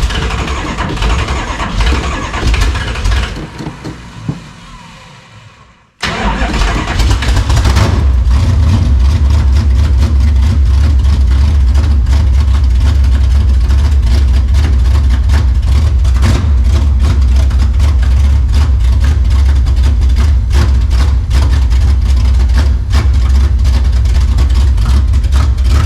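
Carbureted gasoline engine running on fuel poured down the carburettor: it runs rough and fades out over the first few seconds, then fires again about six seconds in and settles into a steady, loud run.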